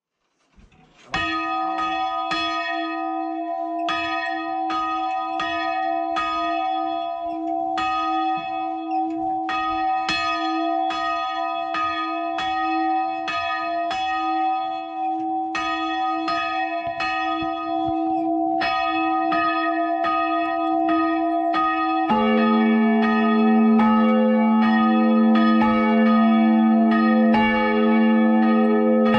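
Hand-swung church bells ringing, with repeated clapper strikes and long ringing tones. The smaller bell, St. Francis (2016, tuned e2), rings alone at first. About three quarters of the way through, the lower 700 kg St. Barbara bell (cast by the Schrötter founders in 1614, tuned a1) joins, and the full peal of both bells rings louder.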